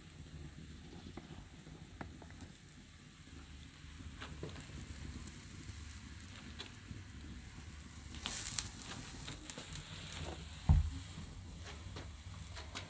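Wood fire crackling under a pot in a clay stove, with scattered small ticks and snaps. A brief hiss comes about two-thirds through, then one heavy thump as the metal pot is set down on the earth floor.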